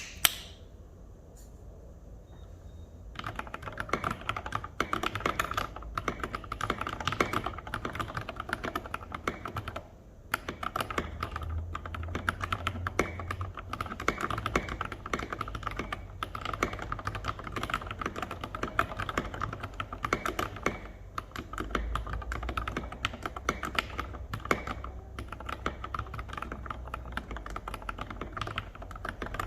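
Typing on an NJ68 mechanical keyboard with lubed Cherry MX Black Retool linear switches and SA-profile keycaps. A fast, steady run of keystrokes gets going about three seconds in, with a brief pause near the ten-second mark.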